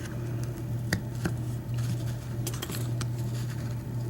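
Scattered sharp metallic clicks and small scrapes of tools working a lock cylinder apart by hand, prying at its retaining clip, over a steady low hum.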